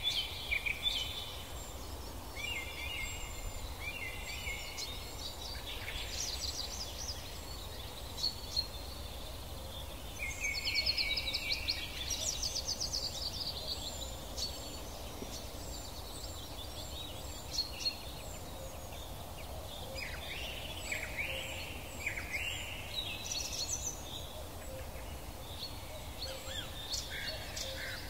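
Songbirds singing in repeated short phrases of chirps and quick trills, the loudest burst about ten seconds in, over a faint steady low rumble.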